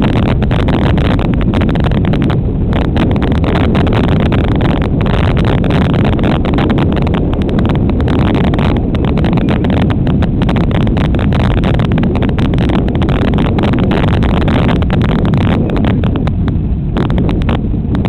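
Loud, harsh static-like rush from a helmet-mounted camera's microphone while cycling: wind buffeting the mic, full of short crackles and rattles as the bike rolls along.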